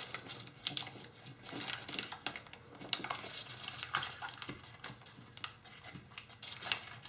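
Tissue foil being folded by hand: soft, irregular crinkling and small clicks as a flap is reverse-folded and pressed flat.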